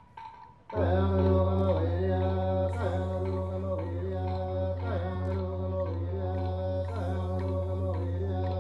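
A deep, steady drone of the kind a didgeridoo makes, starting suddenly about a second in, with a chanted melody over it that wavers and bends every second or so.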